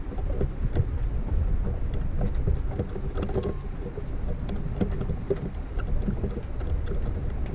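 Boat on its trailer being hauled up a paved launch ramp: a steady low rumble with scattered knocks and rattles.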